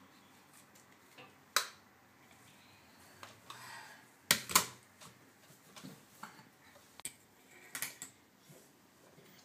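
Small hard makeup items and lids clicking and knocking against a hard countertop as they are handled, in about five scattered strikes, the loudest a close pair near the middle.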